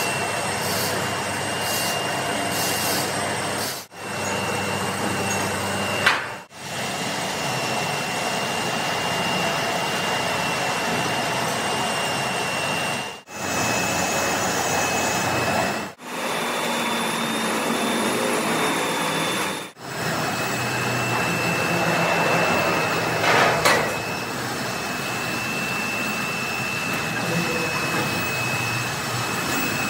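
Workshop machinery running with a steady noise and a constant high whine, broken by several brief gaps, with a short louder swell about three quarters of the way through.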